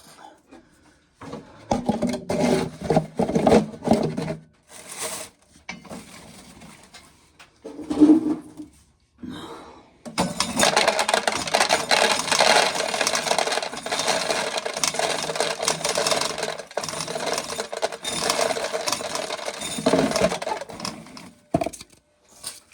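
Dry ear corn being shelled, the kernels scraped and rubbed off the cob with a rasping sound: a few short bursts at first, then a steady stretch of about ten seconds in the second half.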